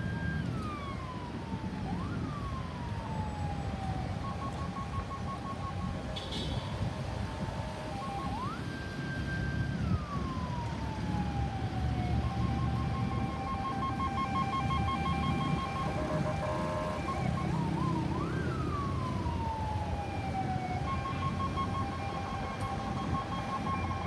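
Electronic ambulance siren switching between modes: a wail that rises quickly, holds and then falls slowly, heard about four times, alternating with stretches of a rapid, steady two-tone pulsing. A steady low rumble of engine and traffic runs underneath.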